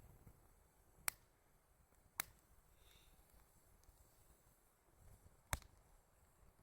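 Wood fire crackling: three sharp, separate pops over a faint background, about a second in, a second later, and again near the end.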